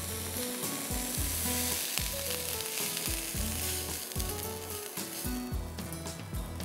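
Onions just sautéed in olive oil sizzling in a hot frying pan as the pan is tipped out into a bowl of mashed potatoes, a steady hiss throughout.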